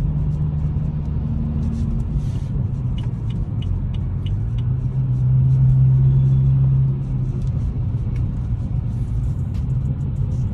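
BMW 435i's N55 turbocharged inline-six engine running while driving, with frequent sharp exhaust pops (backfires); the engine note rises and gets louder around the middle, then eases off. The backfiring is too frequent, which the owner takes for the engine running off its timing, with a broken timing chain guide suspected.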